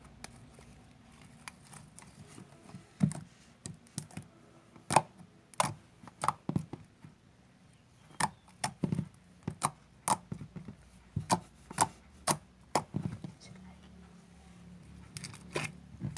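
Homemade white-glue slime being squeezed and squished by hand, giving a string of irregular, sharp, wet popping clicks.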